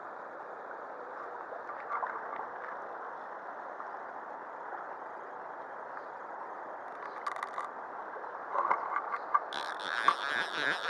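Shallow river running over a gravel bed, a steady rush of water with a few light clicks. Near the end a louder rustling noise with a fast, even pulse starts.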